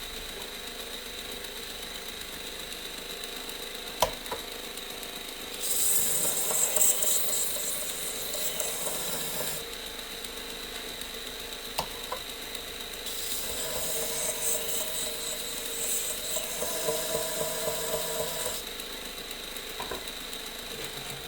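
Powered belt sharpener running steadily with a 600-grit belt, while a Benchmade pocket knife blade is ground against it in two passes of about four and five seconds, each a hissing grind over the motor's hum. A sharp click about four seconds in.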